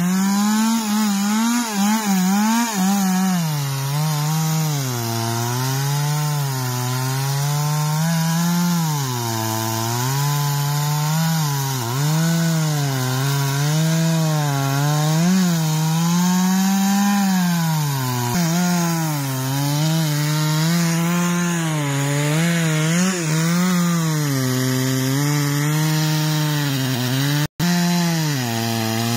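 Two-stroke chainsaw with a long bar, about 70 cm, cutting into the base of a large tree trunk at full throttle. Its engine pitch wavers up and down continuously as it works through the cut. The sound drops out for an instant near the end.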